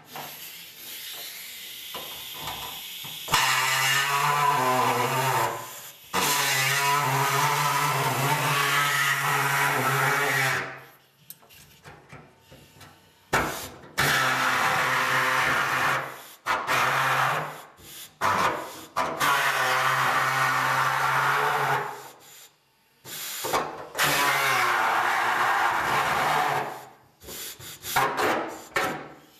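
Air-operated reciprocating hacksaw cutting through the sheet-steel trunk floor pan, running with a steady buzz in about five runs of two to seven seconds, with short pauses between them as the cut is followed along the floor.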